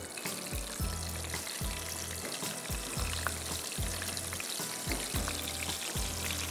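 Raw breaded chicken pieces frying in very hot oil with the burner turned off: a dense, steady crackle of small pops. A low musical beat pulses underneath about twice a second.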